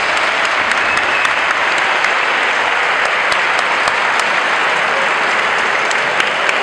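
Audience applauding steadily, individual claps standing out in the clapping, at the end of a kickboxing bout.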